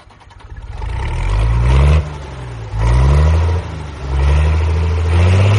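Tractor engine sound revving in about three surges, the pitch rising in each, building up from quiet at the start. It stands in for a toy tractor pulling hard on a tow chain.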